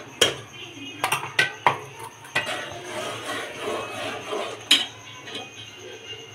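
A metal spoon clinks and scrapes against a cooking pot as spices are stirred and fried. There are several sharp knocks in the first two seconds, a stretch of scraping, and one more knock near the end.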